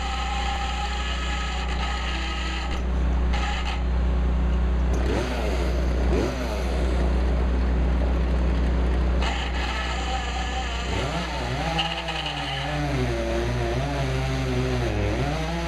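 An engine running steadily, then revved up and down several times, most often in the second half.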